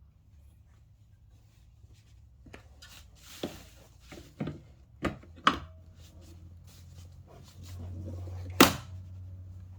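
Curved monitor's stand bracket being handled and pressed into place: several knocks and clicks, then one much louder sharp click near the end as it snaps and locks in.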